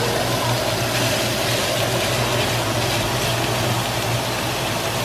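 Sliced sausage sizzling steadily in a frying pan on a gas stove, over a steady low hum.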